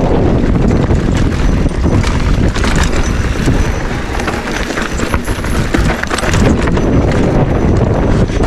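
Wind buffeting an action camera's microphone, with the continuous clatter and knocking of a mountain bike rattling over a rocky trail.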